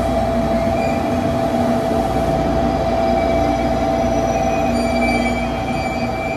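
JR Kyushu 813 series electric train pulling into the platform close by and slowing, with a steady rumble and a steady high whine.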